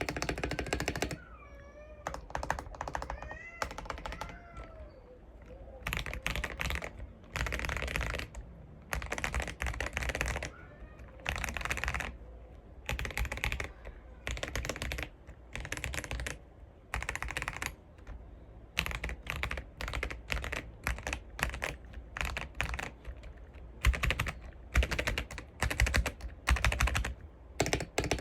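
Typing in bursts on a Keychron V1 mechanical keyboard with lubed Akko V3 Jelly Blue switches and SA-profile keycaps: fast runs of key clicks with short pauses between them. A cat meows a few times a couple of seconds in.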